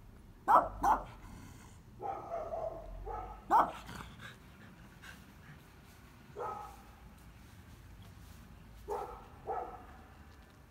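A dog barking repeatedly at a gate: sharp single barks and quick pairs, the loudest about three and a half seconds in, with a longer drawn-out call about two seconds in.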